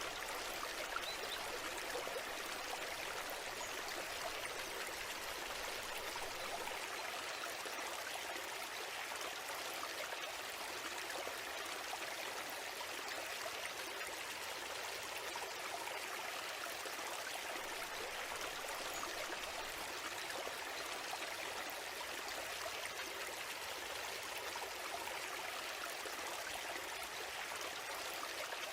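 A small stream flowing steadily over stones, an even babbling rush of water.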